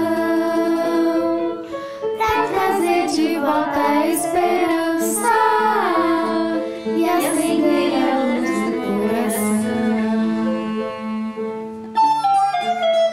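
Young voices singing a song together with a violin accompanying them. About twelve seconds in the singing stops suddenly and recorders take up the melody.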